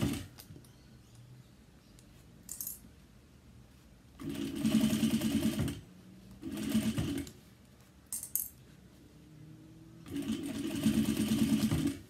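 Sewing machine top stitching a fabric strap in three short runs: about a second and a half, then under a second, then about two seconds, with quiet pauses between them while the fabric is guided. There are a couple of light clicks in the pauses.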